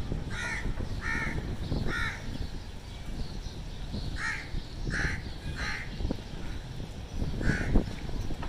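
House crows cawing: a run of about seven harsh caws with a short pause near the middle, over a steady low background rumble.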